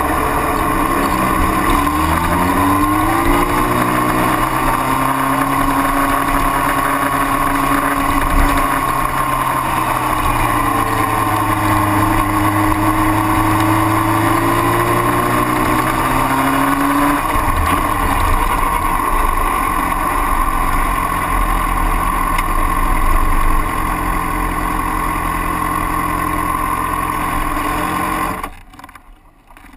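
Motorcycle engine heard from on board at low pit-lane speed, its pitch rising and falling with the throttle, then running steadily. It is switched off and cuts out sharply near the end.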